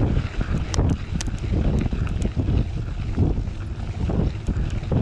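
Wind buffeting the microphone of a bike-mounted camera while riding, over the rumble of a Maxxis Minion DHRII 29x2.6 mountain-bike tyre rolling on gravel, with scattered sharp ticks.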